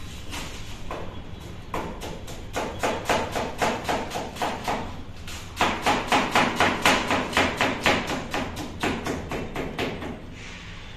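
Chef's knife shredding cabbage on a plastic cutting board: a quick, even run of chopping strokes, about three to four a second, louder from about halfway through and stopping shortly before the end.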